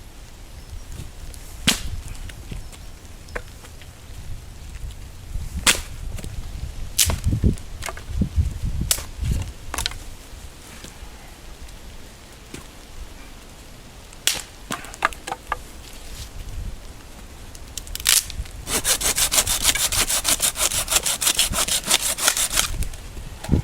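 Dry branches snapping with sharp cracks every few seconds. Near the end, a hand saw cuts through wood with quick, even back-and-forth strokes, several a second, for about four seconds.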